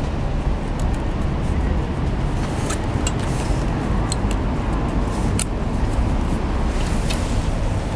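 Steady low background rumble, with a few light metallic clicks scattered through it as a feeler gauge and hand tools work at the intake valve's rocker-arm adjuster of a Royal Enfield Meteor 350 during a valve clearance check.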